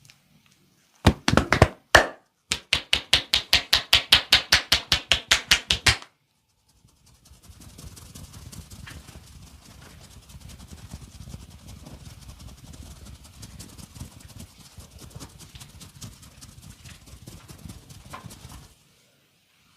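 Hands slapping and tapping on the body in a massage: a few hard slaps, then a fast, even run of strikes for a few seconds. After that comes a long stretch of softer hand rubbing with small scattered clicks.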